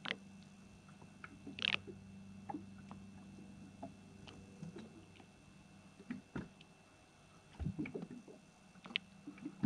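Water lapping and sloshing against a small boat's hull, with scattered small knocks and clicks, the sharpest about two seconds in, over a steady low hum.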